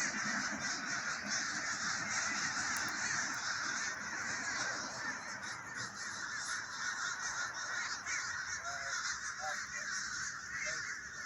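A large flock of birds calling all at once, a dense, unbroken chatter of many overlapping voices.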